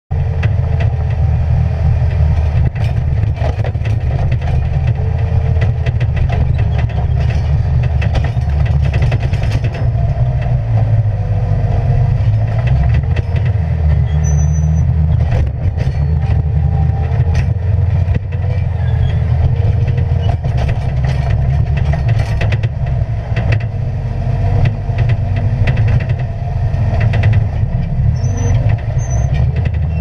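Bobcat skid-steer loader's diesel engine running steadily under load, heard from inside the cab, its pitch wavering a little as it works. Scattered knocks and clicks come through as the bucket pushes snow.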